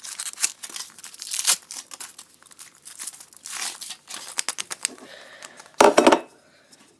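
Wrapper of a Furuta chocolate egg being crinkled and torn open by hand, a dense crackling with a louder burst of crinkling near the end.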